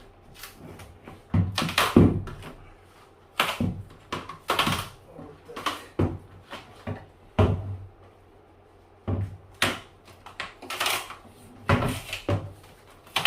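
Old rubber door gasket of an Indesit refrigerator being pulled out of the door: irregular scraping, rubbing and knocking handling noises, about a dozen bursts at uneven intervals.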